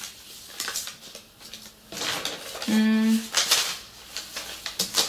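Shoes and their packaging being handled: scattered clicks, knocks and rustling. A brief held tone sounds for about half a second around three seconds in.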